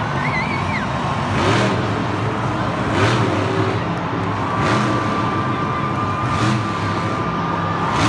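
A monster truck's supercharged V8 engine running with repeated surges of throttle, about every second and a half, as the truck is held balanced up on two wheels.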